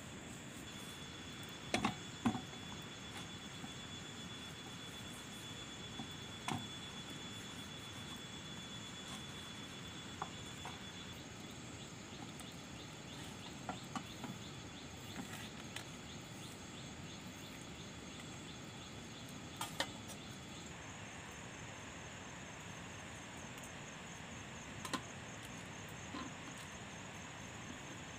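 A kitchen knife cutting raw meat on an aluminium tray, with scattered short sharp taps of the blade against the tray over a steady hiss. A thin steady high-pitched tone runs until about two-thirds of the way through, then stops.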